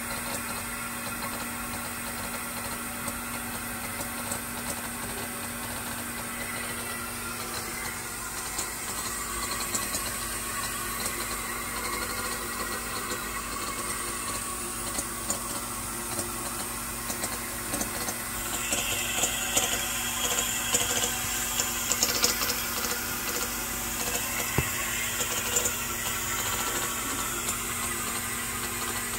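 A glass-turntable optical inspection machine for small screws running: a steady hum and hiss with fine ticking, growing busier with louder clicks from about 18 to 26 seconds in.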